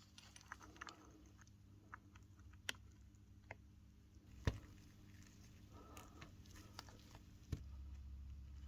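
Quiet handling noises: scattered light clicks and taps of small hard parts being handled and set down, with one sharper tap about halfway through and a knock near the end, over a faint low hum.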